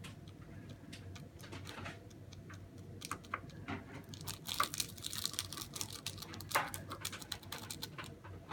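Light clicks, taps and rustles of small plastic slime-kit parts and packaging being handled, busiest about halfway through.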